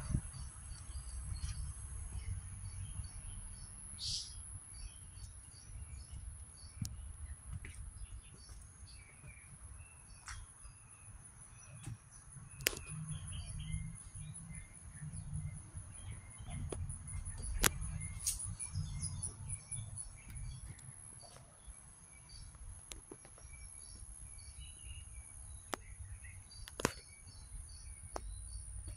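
Outdoor summer ambience: insects buzzing steadily at a high pitch, pulsing for a few seconds in the middle, with scattered bird chirps. A low rumble on the microphone runs underneath, and several sharp clicks stand out as the loudest moments.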